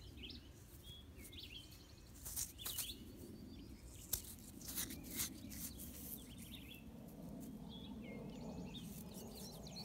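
Small birds chirping now and then over a steady low outdoor background, with a few short clicks and rustles of handling close to the microphone between about two and five seconds in as a stone point is picked up.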